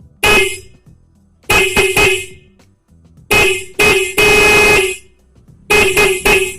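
Dual electric horns on a motorcycle, newly wired through a horn relay, sounded as a test: a short toot, a quick run of three, two short blasts and a longer one of nearly a second, then another rapid run of toots near the end.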